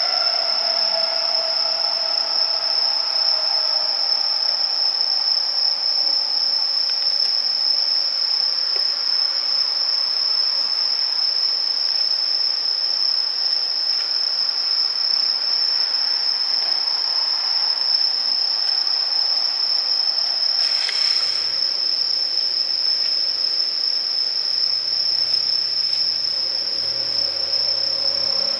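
East i (E926) Shinkansen inspection train decelerating into a station, with a loud steady high-pitched whine and the motor drive's tones falling in pitch over the first few seconds. A short hiss comes about two-thirds of the way in, and low stepped tones and a rising tone start near the end.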